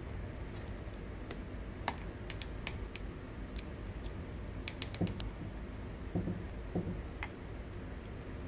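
Light metal clicks and clinks as the transmission gears and shafts are handled in an aluminium motorcycle engine crankcase half, with a few dull knocks about halfway through.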